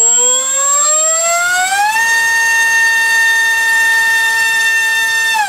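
MultiStar V-Spec 2205 2350 kV brushless racing-drone motor on a 4-cell battery, spinning a 4x4.5 bullnose prop on a thrust stand: its whine climbs in pitch for about two seconds as the throttle comes up, holds steady at high throttle, then starts to fall near the end as the throttle is cut.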